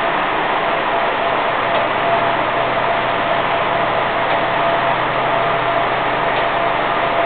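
BD-type vibrating filter, 1000 mm diameter, running while screening ceramic slurry: a steady, even machine noise with a thin whine and a low hum beneath.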